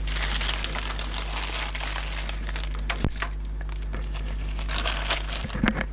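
Plastic packaging crinkling and rustling as it is handled and pulled open, with a sharper crackle about three seconds in, over a steady low hum.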